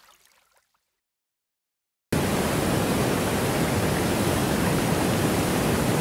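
Silence for about the first two seconds, then the steady, even rush of a waterfall pouring into a pool starts abruptly and carries on.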